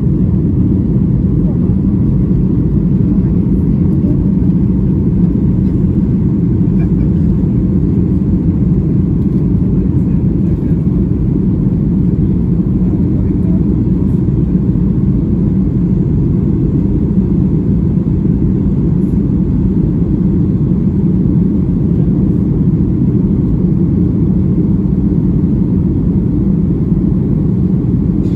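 Steady low rumble of the jet engines and rushing air, heard inside the cabin of a Ryanair Boeing 737 climbing after take-off.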